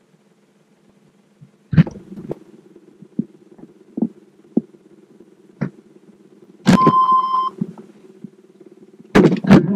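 A Chevy truck's dashboard warning chime sounds one steady beep for just under a second, about seven seconds in, as the ignition is switched on. It is set among scattered clicks and knocks in the cab, and a quick run of louder clicks comes near the end.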